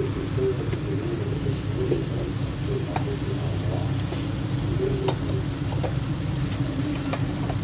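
Chicken strips frying in hot oil in a grill pan: a steady sizzle, with a few small pops of spattering oil.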